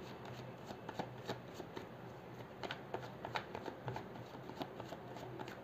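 A tarot deck being shuffled by hand: a faint, irregular patter of soft card clicks and flicks.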